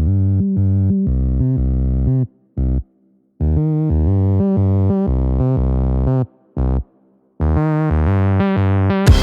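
Background music: sustained synthesizer chords that start and stop abruptly with short silent gaps, switching at the very end to a loud, beat-driven electronic track.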